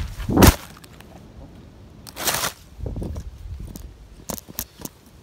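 Camera knocked over by the wind: a loud bump about half a second in, then a rustling noise about two seconds in and scattered clicks and knocks as it lies or is handled.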